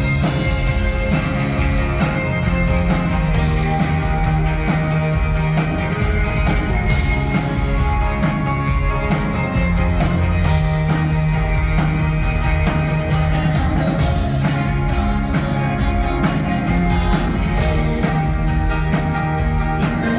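A band playing live: an instrumental stretch of a rock song with a steady drumbeat.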